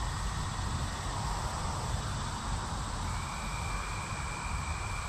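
Outdoor creekside ambience: a steady low rumble under a constant high insect drone, with a thin steady high tone that starts about three seconds in and holds.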